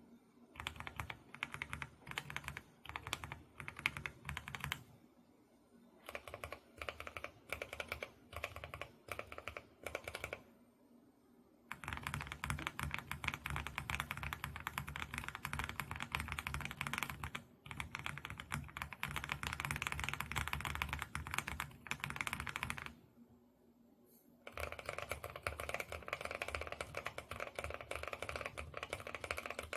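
Mechanical keyboard with Kailh Box Cream linear switches being typed on. It starts in short bursts of keystrokes with brief pauses, then goes to fast continuous typing from about twelve seconds in. After a pause near the end the typing resumes with less low thud.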